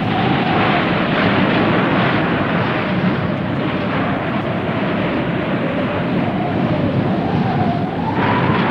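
Tsunami flood sound effect: a dense, steady rush of surging water, with a faint wavering tone beneath it.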